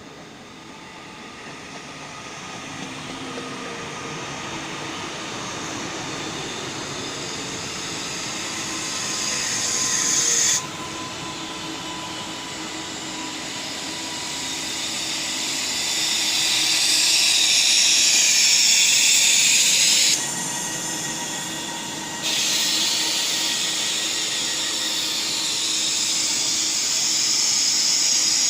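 A TransPennine Express electric multiple unit runs into the platform, getting louder as it comes in. A strong hiss sits over a faint whine that drops slightly in pitch. The hiss cuts off suddenly about ten seconds in, then drops out again for about two seconds around twenty seconds in before coming back.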